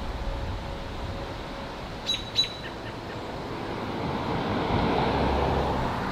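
A bird gives two quick, high chirps about two seconds in, over a steady low outdoor rumble. From about four seconds in, a rushing noise swells and stays.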